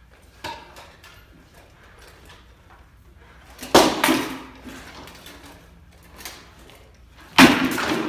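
Two loud blows of armoured sword-and-shield sparring, weapons and shields striking, the first about four seconds in and the second, a close clash, near the end; a few lighter knocks between them.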